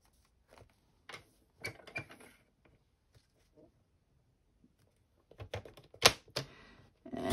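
Scattered light taps and clicks of a paper trimmer being handled as patterned paper is set in place and the clear cutting rail is lowered onto it, then two sharp clicks about six seconds in as the trimmer's blade is worked to cut the paper.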